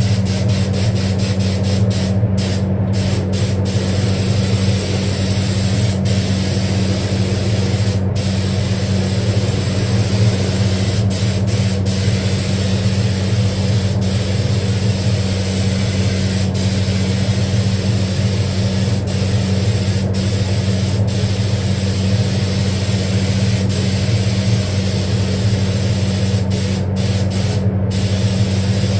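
Spray booth extractor fan running steadily: a low hum with an even hiss over it, broken by several very brief dropouts.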